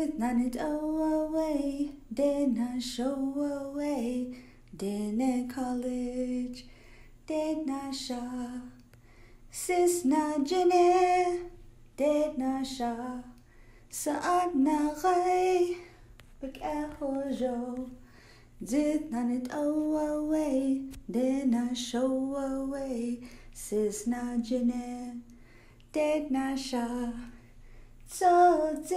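A single voice singing unaccompanied, in short phrases of held notes a second or two long, each followed by a brief pause.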